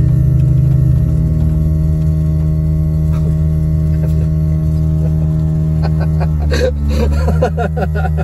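Air compressor running with a steady, irritating low hum that won't stop, heard inside a car's cabin. About six seconds in, a short run of clicks and brief sharper sounds comes over it.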